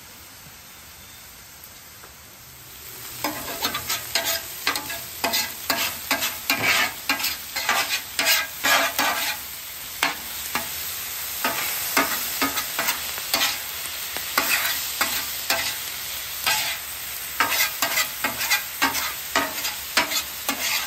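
Metal spatula chopping and scraping ribeye, pepperoni, salami and onions on a hot Weber flat-top griddle, with rapid irregular clacks of steel on the griddle plate over a steady sizzle of frying in beef fat. The sizzle and clacking start about three seconds in, after a faint hiss.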